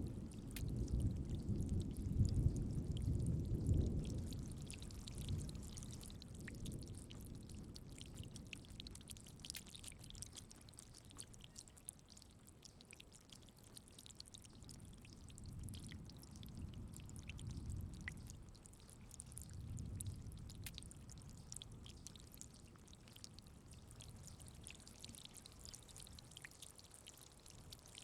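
Steady rain falling, a fine hiss of patter and drips, with rolling thunder: a deep rumble that is loudest at the start and fades over the first several seconds, then two softer rumbles later on.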